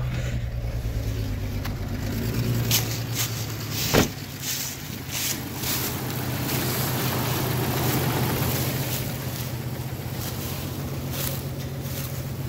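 Jeep Cherokee XJ engine idling steadily just after starting, with a few light clicks and one sharp thump about four seconds in.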